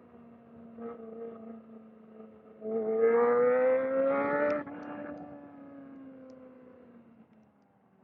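Kawasaki ZX-4R's inline-four engine holding steady revs. About three seconds in, the throttle opens and the note climbs loudly for nearly two seconds, then cuts back. The revs then fall off slowly and the sound fades.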